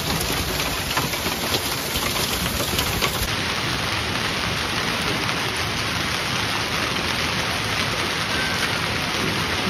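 Heavy hailstorm: hailstones and rain pelting the ground in a dense, steady patter of countless small impacts.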